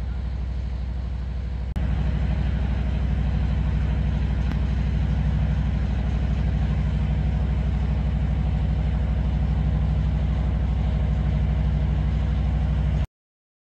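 A site generator's engine running steadily with a low, even drone. It gets louder about two seconds in and cuts off abruptly near the end.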